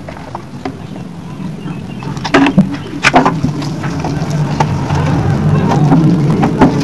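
Hollow plastic knocks and clatters as a split air conditioner's indoor-unit casing and front panel are handled and stood upright, with the sharpest knocks about two and three seconds in. Under them runs a steady low motor hum.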